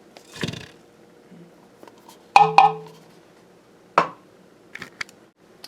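Kitchenware clinking and knocking while dry ingredients are added. There is a soft rustle about half a second in, two sharp ringing clinks near the middle, a knock about four seconds in, then a few light taps.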